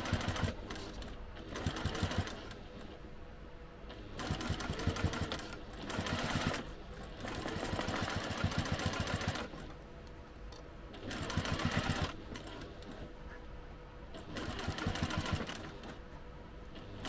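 Electric sewing machine stitching in a series of short runs, each a second or two long with brief stops between, as fabric layers are basted together.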